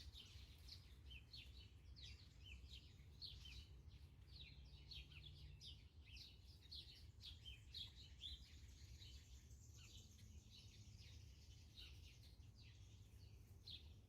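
Faint chirping of small birds: many short, high chirps scattered throughout, over a low steady hum.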